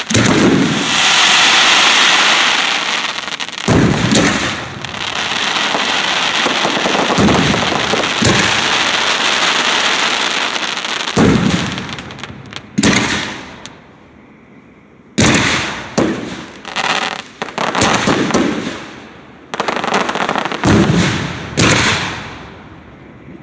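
Aerial fireworks shells bursting. For the first half, heavy booms land one after another over a dense crackling hiss; then it thins to a string of separate sharp bangs.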